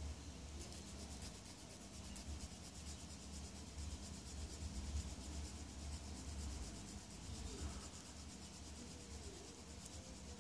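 Sanding stick rubbed in quick, light, repeated strokes over a small plastic model-kit part, cleaning off a leftover sprue gate. A low steady hum runs underneath.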